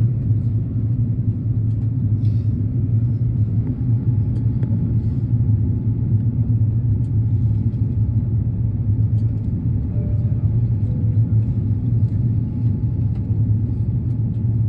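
Steady low rumble of an Airbus A330-900neo's engines and airflow heard inside the passenger cabin as the airliner descends on approach to land.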